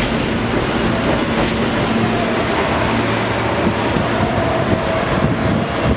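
New York City subway train of stainless-steel cars rolling along a station platform at close range: a steady, loud rumble of wheels on rail with a faint steady motor hum.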